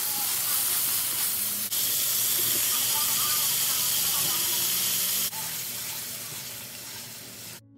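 Shredded cabbage, onion, bell pepper and carrot sizzling in hot oil in a nonstick wok as a spatula stirs them. The sizzle eases off in its last seconds and then cuts off suddenly near the end.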